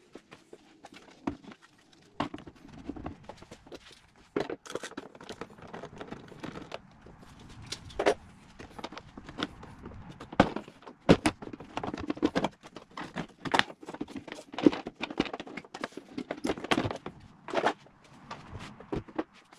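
Plastic airbox housing being unclipped, worked loose and lifted out of a VW Golf Mk6's engine bay: irregular clicks, knocks and plastic rattling.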